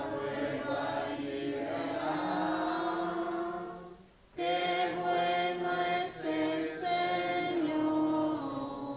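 Congregation singing the responsorial psalm refrain unaccompanied, in two sung phrases with a short break about four seconds in.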